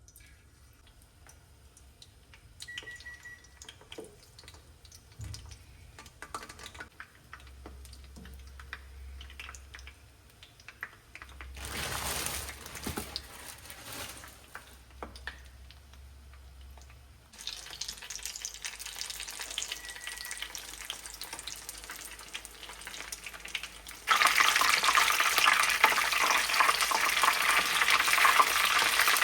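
Kitchen sounds: faint clicks and small knocks, a short rush of noise, then a steady hiss. About 24 s in, a loud steady sizzle starts abruptly: food deep-frying in hot oil.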